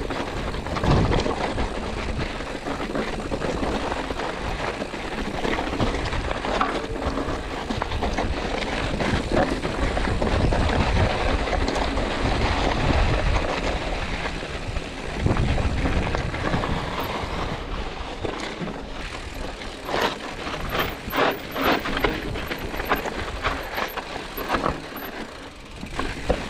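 Mountain bike rolling down a rocky trail: tyres crunching over loose stones and gravel, the frame and drivetrain rattling over the bumps, with a steady low rumble of wind on the microphone. Near the end comes a quick run of sharp clacks and knocks as the bike hits rougher rock.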